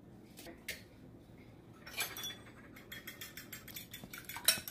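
Eggs being beaten by hand in a glass bowl, the utensil clinking rapidly against the glass from about two seconds in, after a couple of light taps near the start.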